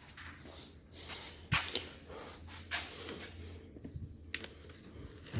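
A small pointed poker scraping and jabbing at the taped seam of a cardboard box, heard as a few scattered sharp scratches and clicks.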